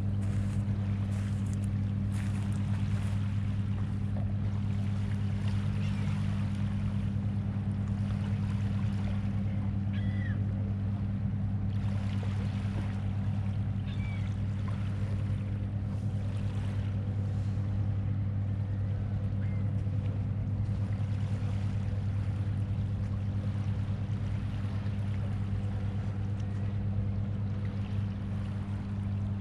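A steady low mechanical drone with a few even overtones, unchanging in pitch or level. A few faint short bird chirps come through in the middle.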